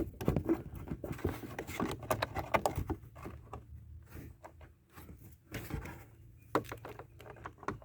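Irregular small clicks, taps and scrapes of a screwdriver and screws being worked out of a car's plastic dash pad, with a quieter stretch around the middle.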